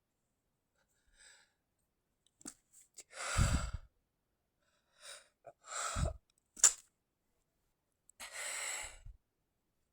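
A person's stifled sneezes: three short, held-back sneezes a few seconds apart, the last one sharpest, with softer breaths around them and a longer breath near the end.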